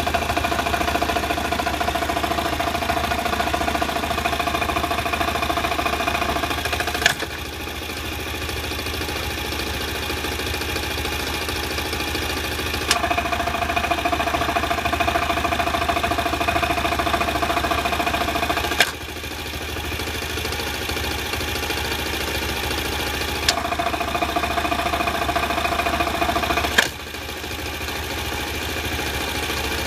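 Honda Super Cub 90's four-stroke single-cylinder engine idling with a clattering rattle, an abnormal noise whose cause is unknown to the owner. The rattle goes away with a click each time the gear-shift pedal is pressed down, about seven seconds in, again near the middle and near the end. It comes back when the pedal is released.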